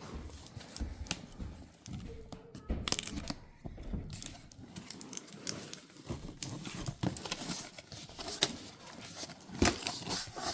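Packaging being torn and crinkled open by hand: irregular rustling with scattered sharp clicks, louder near the end.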